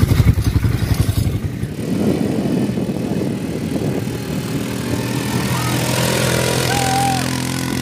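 Quad bike (ATV) engine running as it is ridden over sand dunes: a rough, fast-pulsing sound at first, then a steady engine drone from about two seconds in.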